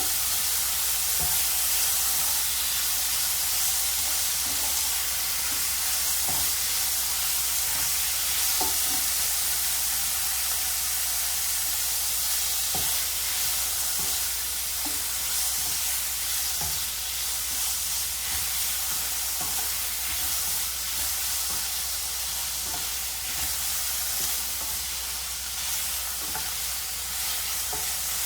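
Chopped chicken and beef sizzling in hot oil in a wok, with a steady hiss and occasional light knocks of the spatula as the meat is stirred.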